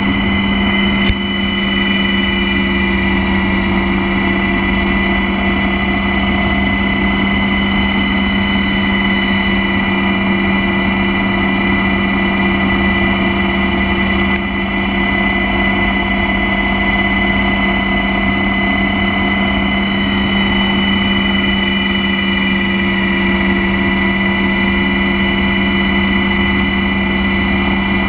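Steady drone of an aircraft's engine heard from on board in flight, with a strong low hum and a thin high whine that hold level throughout.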